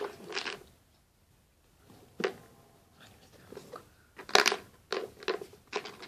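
A hard plastic food container with a clip-on lid is handled and tipped, giving a few short plastic knocks and crinkles, most of them in the last two seconds. An iron nail and tissue paper are shut inside it.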